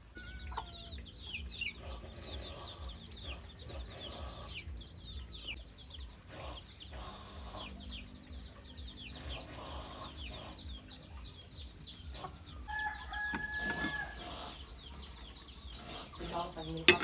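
Chickens calling: a quick, continuous run of high, falling peeps and clucks, with one longer held call about thirteen seconds in.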